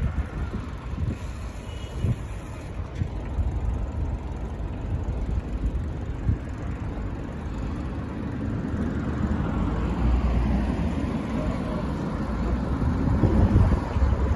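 City street traffic with wind rumbling on the microphone of a moving bicycle; the wind rumble grows louder toward the end.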